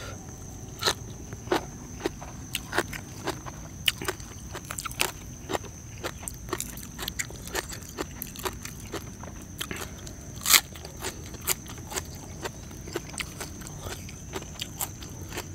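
Close-miked eating: a person biting and chewing crunchy food in irregular crisp crunches, the loudest about ten and a half seconds in. A thin steady high tone runs underneath.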